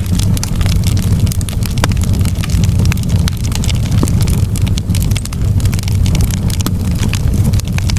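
Wood fire in a fireplace crackling, with many sharp pops and snaps over a steady low rumble of flames.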